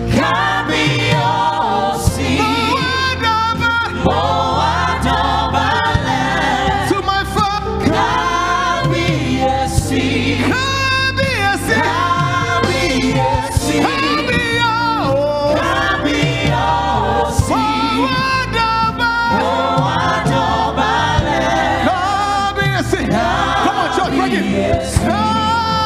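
Live gospel praise singing: a male lead vocalist with female backing singers, over instrumental accompaniment with a sustained bass line.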